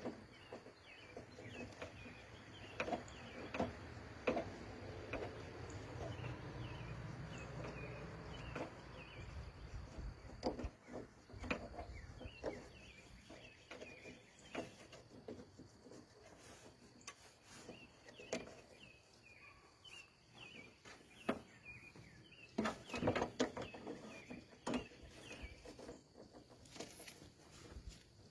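Faint outdoor ambience: a steady high insect drone and many short repeated chirps, with scattered knocks and clatters, a cluster of them about two-thirds of the way through.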